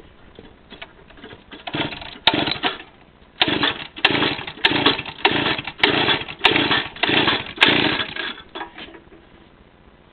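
Jonsered two-stroke chainsaw being cranked over by its recoil starter cord: one pull, then a rapid run of about nine pulls, each with a rasp of the rope and a click. The engine turns over without firing because it has no spark, while a compression gauge reads about 125 pounds.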